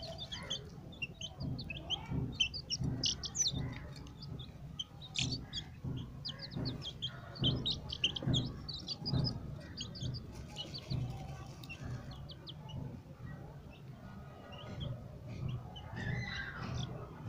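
White Leghorn chicks peeping: a rapid run of short, high cheeps, thick over the first ten seconds or so and thinning out after, over soft low thuds.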